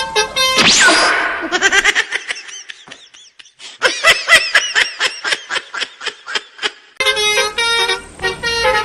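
Telolet-style multi-tone bus horn playing a quick tune, broken off by a swooping sound effect and a stretch of rapid, high, chirping notes. The horn tune starts again about seven seconds in.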